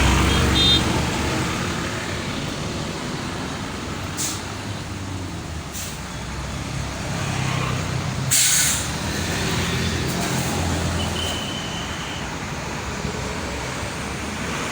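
Bus diesel engine running steadily, with short sharp hisses of compressed air from its air brakes, the loudest about eight seconds in.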